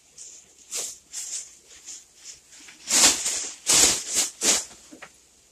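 Plastic bag rustling while being handled, in a series of short bursts, loudest from about three to four and a half seconds in.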